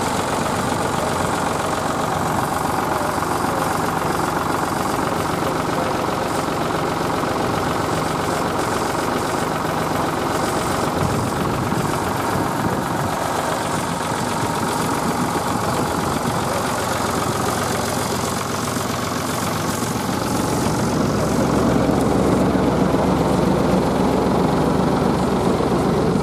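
Vintage tractor engine running steadily, getting louder about twenty seconds in.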